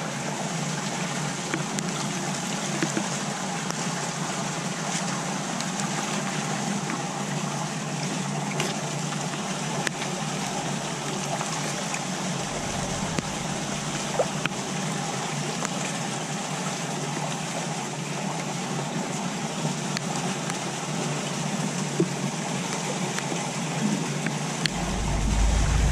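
Steady hiss of rainwater running and trickling into a roadside drain, with a few faint clicks. A low rumble comes in near the end.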